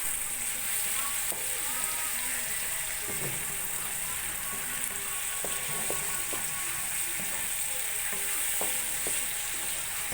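Pork spare ribs frying in a pan, a steady hissing sizzle, with a few sharp clicks of a utensil against the pan as the meat is stirred.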